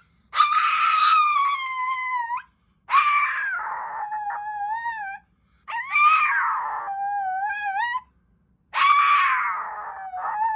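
Small dog howling: four long howls, each starting harsh and settling into a wavering, falling tone.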